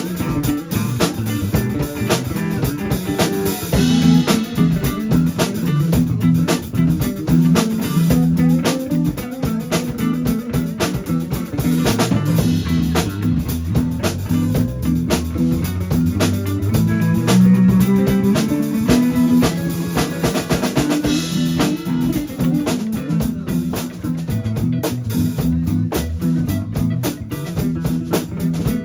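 Rock music with a drum kit, guitar and bass playing throughout, in a blues-rock style.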